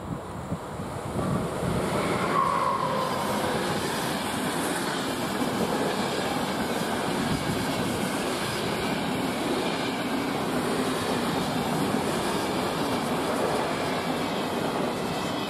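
Passenger train hauled by a ZSSK class 383 (Siemens Vectron) electric locomotive passing on the main line: the wheel and rail noise builds over the first second or two as the train arrives, then holds as a steady rumble with clickety-clack as the coaches roll by.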